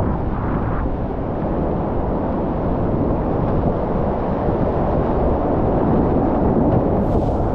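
Steady, loud rush of whitewater churning through a rapid, heard from a kayak running it, with a rough low rumble of water and wind on the microphone.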